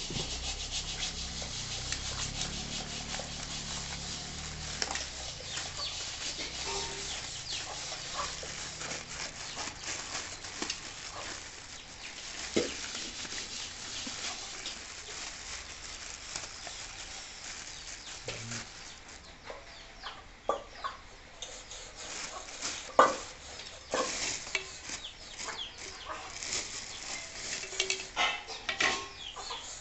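Clear plastic wrapping rustling and crinkling as it is pulled off a ceiling fan motor. Over the last ten seconds the rustle thins out into scattered sharp clicks and knocks as the unwrapped motor is handled.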